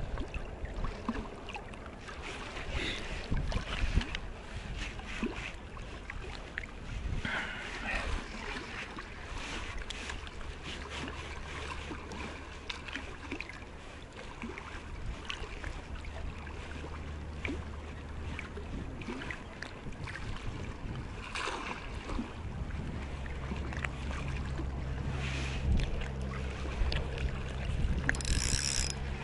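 Wind on the microphone and choppy sea water around an angler wading in the shallows. A low steady drone sets in about ten seconds in, drops away briefly, and returns more strongly for the last few seconds.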